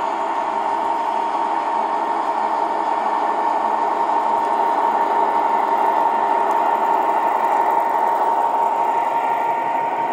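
O scale model diesel locomotives running past on three-rail track: a steady mechanical running noise from motors and wheels with a constant whine, growing a little louder as the locomotives pass close.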